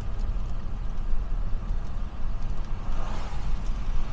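Steady low rumble of road and engine noise inside a moving car on a rain-wet road, with a hiss swelling near the end.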